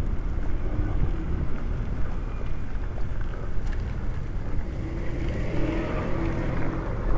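Street traffic with a low wind rumble on the microphone; a vehicle engine drones more clearly near the end.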